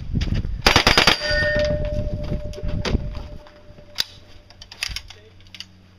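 Uzi submachine gun firing a short rapid burst about a second in, and the hit steel target rings on after it, a clear clang that fades over a couple of seconds. A few single sharp clicks or knocks follow.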